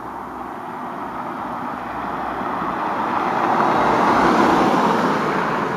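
A car drives past, its road and engine noise swelling to a peak about four seconds in and then fading.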